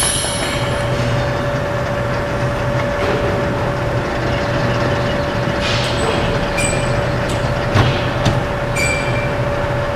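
Metal lathe running with its four-jaw chuck spinning, during single-point cutting of a 3/4-inch NPT taper thread. A steady hum with a constant mid-pitched tone, a few short high squeals and clicks, and a sharp knock about eight seconds in.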